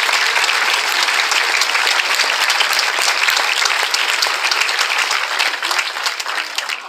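Crowd applauding, dense and steady clapping that dies away near the end.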